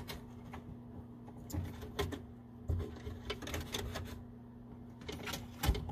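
Wire being fed by hand back through holes in wooden benchwork: scattered light clicks, knocks and rustles as the cable rubs and taps against the wood, over a steady low hum.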